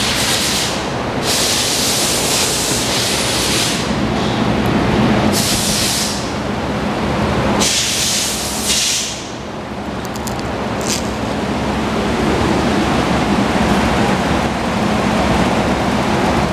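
Steady rushing air noise with a low hum underneath, as from a large shop drum fan. Several louder bursts of hiss in the first half, where the airflow buffets the microphone.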